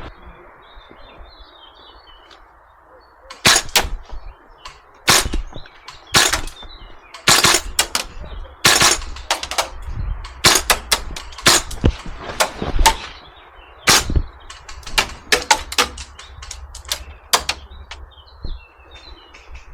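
Airsoft rifles firing single shots and short quick strings at irregular intervals, sharp cracks with gaps between them.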